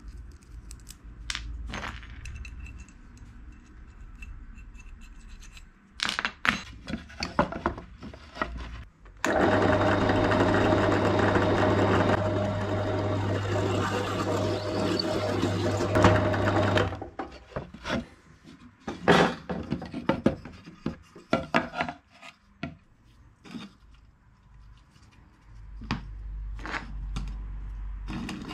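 Knocks and clicks of wood and tools being handled, with a power tool running steadily for about eight seconds in the middle before stopping.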